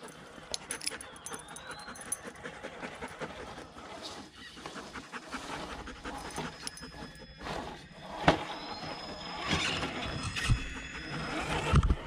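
Dog panting steadily, with a sharp knock about eight seconds in and low bumps near the end.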